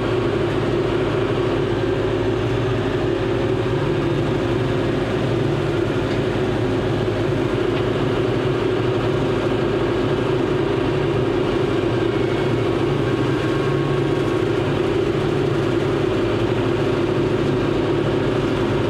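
John Deere 5085M tractor's four-cylinder diesel engine running at a steady speed, its pitch and loudness unchanging.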